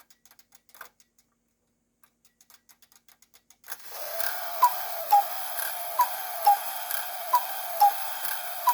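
Cuckoo clock with a rebuilt movement, ticking faintly, then its strike side going off about four seconds in: a steady rushing hiss sets in and the bellows pipes sound the two-note cuckoo call, high then lower, about every second and a third, four times.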